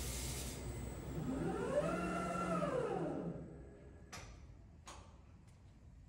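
Diamond-cut wheel lathe ending a cutting pass: the steady cutting sound fades out, then a motor whine rises and falls in pitch over about two seconds as the tool head moves up off the wheel. After that it is quieter, with two sharp clicks near the end.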